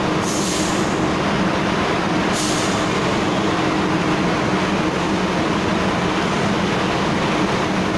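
UD Quester truck's diesel engine running steadily at low speed as it rolls onto a ferry's enclosed steel vehicle deck, with two short hisses in the first three seconds.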